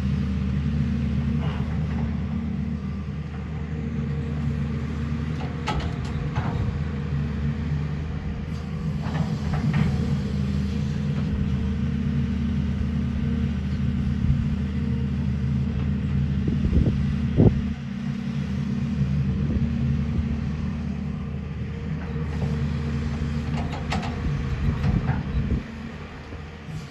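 JCB excavator's diesel engine running steadily with a low drone, with a few sharp knocks over it, the loudest about two-thirds of the way through; the engine sound dips just before the end.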